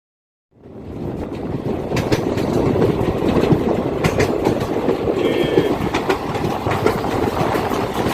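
ICF passenger coach running on the rails: a steady rumble of wheels on track with a few sharp clacks over rail joints, starting about half a second in.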